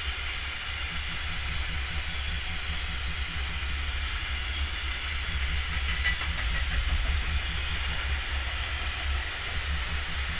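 A long freight train of bogie hopper wagons rolling past, a steady rumble with rail and wheel noise that swells slightly partway through.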